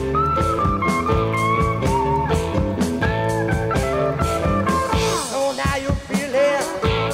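Recorded rock music: a band with electric guitar and drum kit playing an instrumental stretch. Near the end a lead line bends up and down in quick sweeps.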